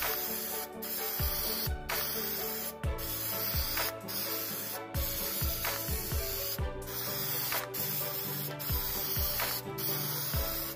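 Aerosol can of Krylon hammered-black spray paint hissing in short bursts, each about a second long, with brief breaks between them.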